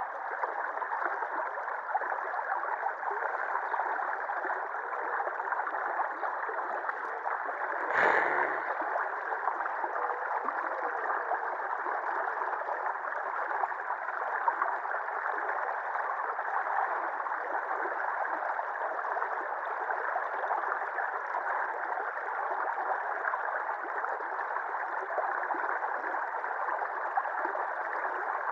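Shallow river water running and gurgling steadily over and around a low concrete sill, with one brief thump about eight seconds in.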